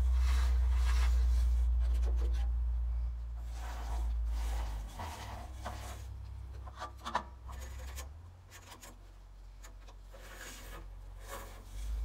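Intermittent rubbing and scraping from handwork at a bandsaw mill's saw head, over a low steady rumble that weakens after about three seconds and nearly fades out in the second half.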